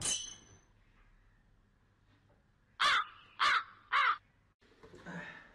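Three short, harsh caw-like calls in quick succession, about half a second apart, each rising and falling in pitch.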